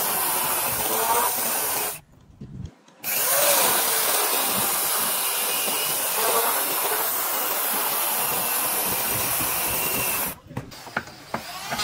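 Corded Makita electric chainsaw running as it rip-cuts lengthwise along a wooden plank. The steady sawing breaks off for about a second two seconds in, then resumes and stops shortly before the end, leaving a few faint clicks.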